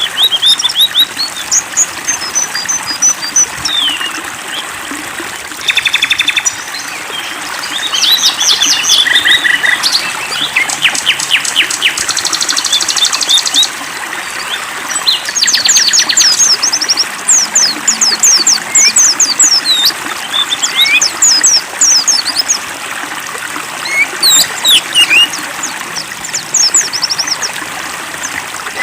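Several songbirds chirping and singing over a steady trickle of running water: fast trills, rapid strings of repeated notes and quick sweeping whistles, one after another. It is a bird-song and water 'therapy' track of the kind played to coax caged songbirds into singing.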